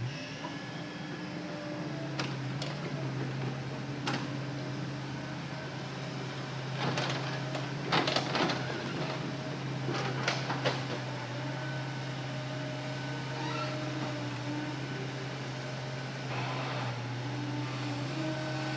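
Hitachi Zaxis excavator running with a steady low engine and hydraulic drone while loading logs. Several sharp knocks and clatters come through, clustered around the middle and again near the end.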